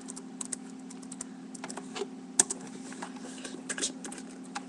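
Typing on a computer keyboard: irregular key clicks, one sharper click about halfway through and a quick run of clicks near the end, over a steady low hum.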